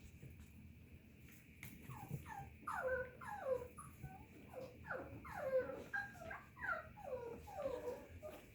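Mini Goldendoodle puppies whimpering: a run of short, high whines, each falling in pitch, beginning about two seconds in and continuing, some overlapping.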